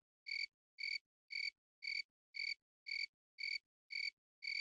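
Electronic beeping: a short, high, even tone repeating steadily about twice a second, nine beeps in all, with dead silence between them.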